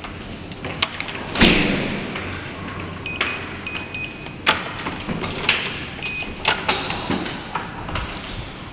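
A heavy building door thuds shut about a second in, followed by a series of clicks and knocks of door handles and locks, and two groups of short electronic beeps from a door's code keypad as the next door is unlocked and opened.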